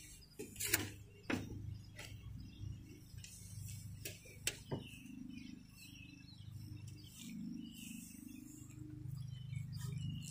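Birds chirping in the background, with about half a dozen sharp clicks and taps in the first five seconds, the loudest one early. A low steady hum runs underneath.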